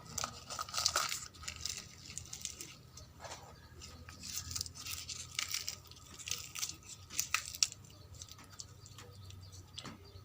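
Poori being torn apart by hand: irregular crisp crackles and rustles.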